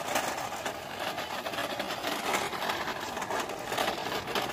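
Plastic toy dump truck pulled on a string, its wheels rolling and rattling steadily over bumpy paving blocks.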